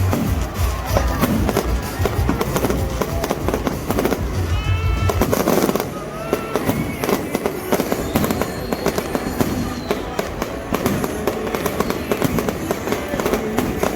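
Fireworks going off, a dense run of bangs and crackles, with music carrying a heavy bass that drops away about six seconds in, and some voices.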